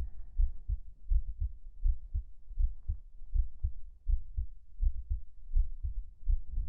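A person's heartbeat heard close up through the chest: steady low thumps, each beat a double lub-dub, a little faster than one beat a second.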